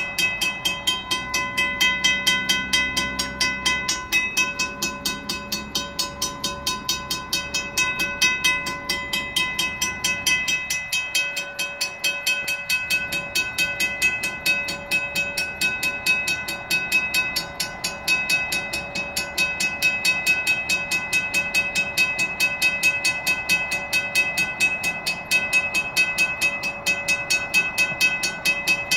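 Railroad grade-crossing warning bell ringing in rapid, even strikes. It switches on suddenly as the train approaches and rings on steadily at the same pitch.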